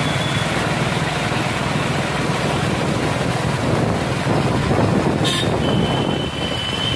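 Road traffic in a jam on a wet road: vehicle and truck engines run with a steady low hum under an even rushing noise. A short high beep about five seconds in is followed by a thin high tone that holds on.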